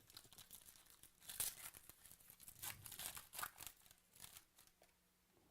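A trading card pack's wrapper being torn open and crinkled by hand, heard as faint, irregular crackling and rustling.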